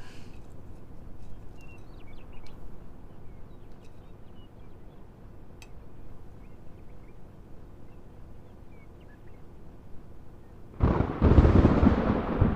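A faint low rumble with a few small chirps, then, almost eleven seconds in, a sudden loud clap of thunder that rolls on.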